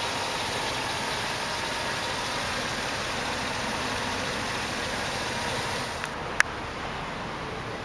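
A Hummer H2's 6.2-litre V8 idling steadily, heard from outside the truck. About six seconds in the sound drops lower, with a single sharp click just after.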